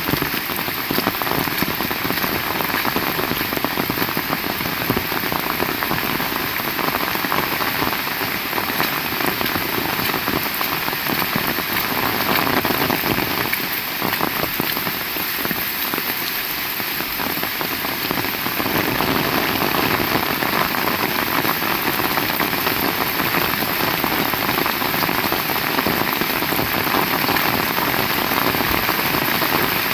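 Heavy rain falling, a steady, dense patter of drops.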